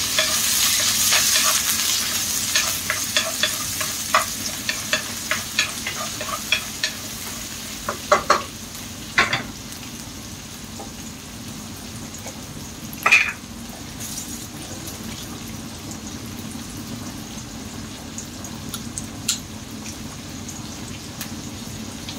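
Beef sautéing with garlic and onion in hot oil, sizzling loudest at first and then settling down, while a utensil clacks against the pan a few times as it is stirred.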